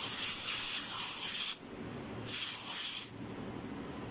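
Aerosol can of foam computer and keyboard cleaner spraying onto keyboard keys. The hiss stops about a second and a half in, and a second short burst follows just before the three-second mark.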